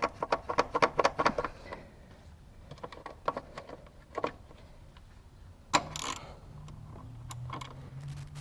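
Socket ratchet clicking in quick even strokes as the battery hold-down bolt is driven back in, followed by scattered clicks and knocks of tools and parts, with one louder knock about six seconds in.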